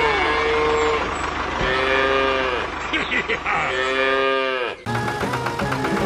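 Cattle mooing: three long, drawn-out moos. Near the end it cuts abruptly to rhythmic music.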